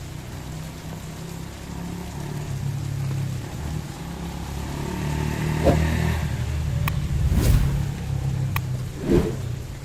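Street traffic: a car engine running and growing louder over several seconds as the car comes near and passes, with a couple of sharp clicks near the end.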